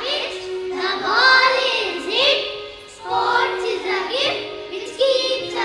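Group of young children singing a song together with music.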